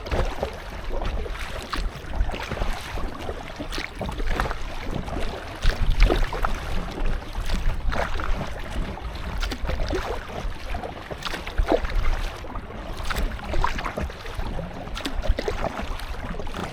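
Kayak paddle strokes splashing, with small waves slapping against an inflatable kayak's hull, in irregular splashes every second or so. Wind rumbles on the microphone underneath.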